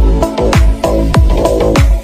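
Electronic dance music with a steady kick-drum beat, about three beats a second, over sustained synth chords.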